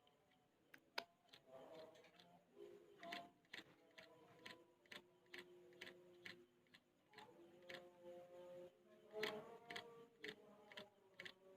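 Sooty-headed bulbul nestlings begging to be fed: faint, short sharp chirps in irregular runs, thickest near the middle and end.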